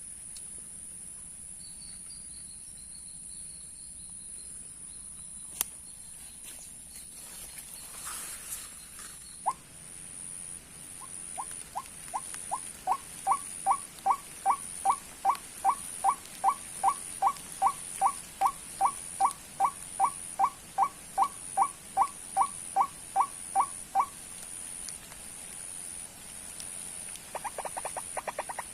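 White-breasted waterhen calling: a long series of short, rising croaking notes, a little over twice a second. The series builds in loudness, then stops abruptly. A steady high-pitched insect drone sounds behind it.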